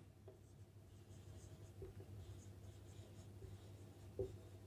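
Faint scratching of a marker pen writing on a whiteboard.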